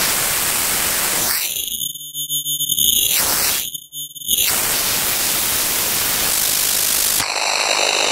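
SoundHack Spectraphon in its Noise oscillator mode, giving a dense synthesized hiss made of noise sidebands around sine waves as its knobs are turned. Twice, about two and four seconds in, the hiss narrows into a few separate ringing bands of filtered noise and then opens out again. Near the end it turns thinner and brighter, with a faint high tone.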